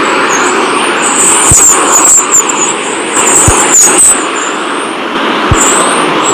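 NASA sonification of space data: a steady rushing noise with quick chirping tones high above it and a short low thump about every two seconds.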